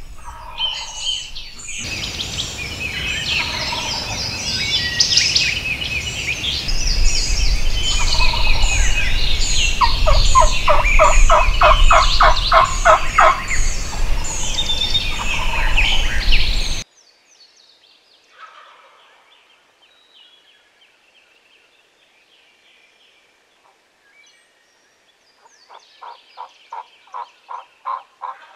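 Dawn chorus of songbirds with a low rumble under it, and a rhythmic series of wild turkey calls, about four a second, roughly ten seconds in. The birdsong cuts off suddenly a little past halfway, leaving it much quieter. Near the end another rhythmic series of turkey calls begins.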